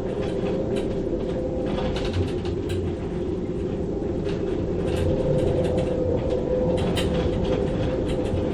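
Storm wind gusting through a sailboat's rigging: a steady whistling howl over a low rumble, with scattered sharp ticks and taps. It swells a little about halfway through.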